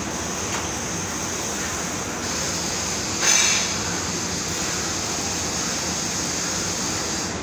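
Steady machinery and ventilation noise of a factory floor, with a short, louder hiss a little over three seconds in.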